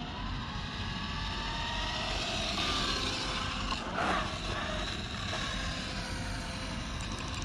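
Arrma Infraction V2 RC car on 8S power, its brushless motor whining and gliding up and down in pitch as the car speeds and turns, loudest as it passes close about four seconds in.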